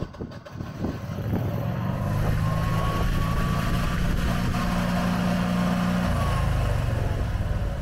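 Air-cooled V-twin engine of a Generac 26 kW home standby generator starting and running up to a steady speed within about two seconds. It then runs evenly, its note shifting slightly about six seconds in.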